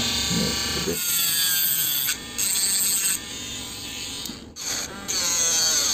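Small handheld rotary tool with a sanding bit grinding down a metal diecast toy car part that is too long, its motor whine sagging and recovering in pitch as the bit bites. The grinding stops briefly twice.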